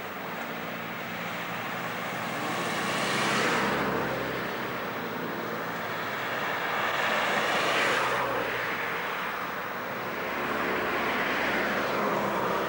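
Class 307 electric multiple unit running past on the rails, its noise swelling and fading three times.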